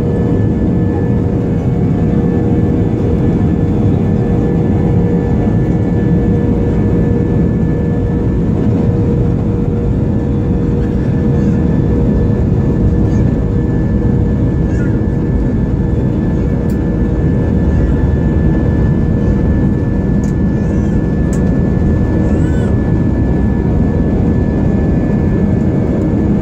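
Jet airliner cabin noise heard over the wing: the engines run with a steady low rumble and a steady whine as the plane taxis onto the runway.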